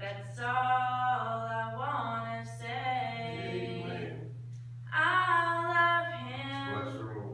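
A woman singing a gospel song solo, with no clear accompaniment, her phrases broken by a short pause a little past the middle. A steady low hum runs underneath.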